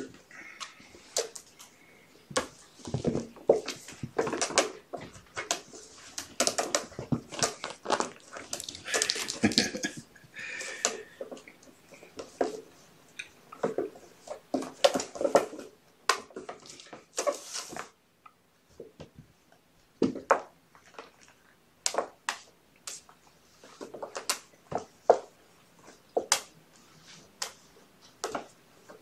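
Kittens scrambling around and on a plastic pet scale tray: irregular scrabbling, rustling and light knocks of paws and claws on plastic and carpet, thinning to sparse taps in the second half.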